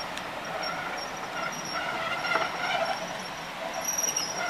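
Bogie passenger coaches rolling slowly past on the rails, with high, thin wheel squeals that come and go over the running noise.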